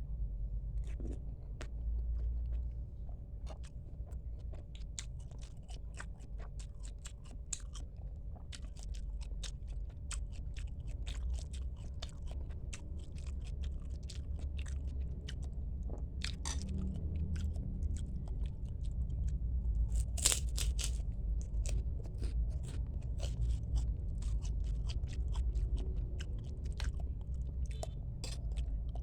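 Close-miked chewing and eating of bakso: a continuous run of small wet mouth clicks and smacks, louder around 16 and 20 seconds in, over a steady low hum.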